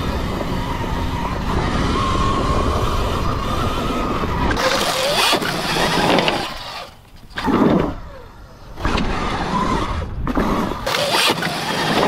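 Sur-Ron electric dirt bike being ridden over dirt: a thin, steady whine from its electric motor under a rush of wind and tyre noise. After about four seconds the noise turns uneven, with loud swells and two short drops.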